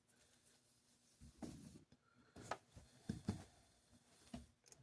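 Near silence with a few faint, short scrapes and taps of small locomotive truck parts being handled and fitted together by hand.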